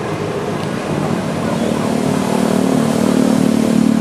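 A motorbike engine running steadily on a road, growing louder from about halfway through.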